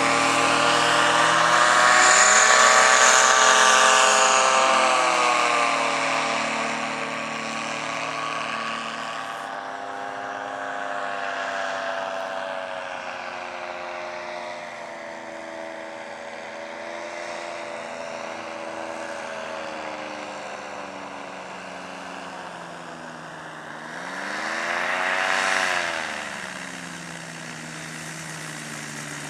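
Powered parachute's engine and pusher propeller droning as it flies past low, loudest a few seconds in and dropping in pitch as it goes by. About 25 seconds in the engine revs up briefly, then falls back to a low, steady idle.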